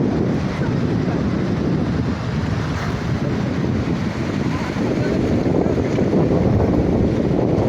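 The Kunhar River, a fast mountain river, rushing steadily over its bed: a constant deep wash of moving water.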